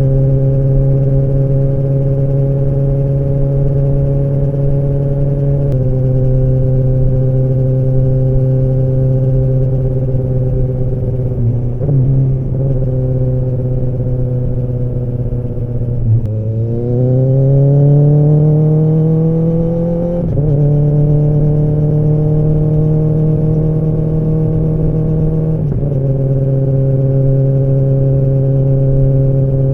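Kawasaki ZX-10R inline-four engine and exhaust holding steady revs while riding, with small changes in throttle. About halfway through, the revs climb for a few seconds under acceleration, then drop sharply at an upshift and settle into a steady note again.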